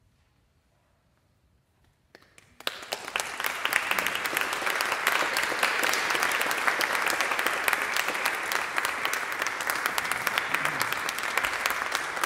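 Near silence, then an audience begins clapping about two seconds in: a few first claps, then steady applause from many hands.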